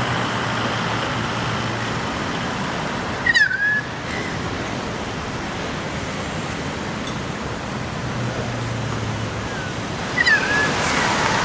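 Steady outdoor rushing noise with a low hum at times. A bird's short, loud call bends up and then down twice, about three seconds in and again near the end.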